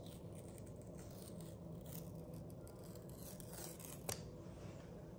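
Paper packaging being handled: the paper pull-tab seals of a phone box rubbing and scraping as they are pulled, with one sharp click about four seconds in, over a faint steady hum.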